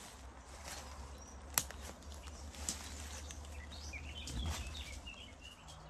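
Outdoor ambience: scattered snaps and rustles over a low steady rumble that stops about five seconds in, with a few short bird chirps about four seconds in.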